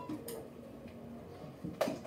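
The last note struck on a mallet percussion instrument rings briefly and dies away, then a quiet room with a single sharp knock near the end.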